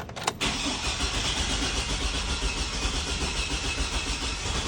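Starter cranking the 2004 Chevy Silverado's 4.3-litre V6 in an even rhythm, with a click as it engages about half a second in; the engine turns over without catching, a crank-no-start being tested just after corrosion was cleaned off the distributor cap.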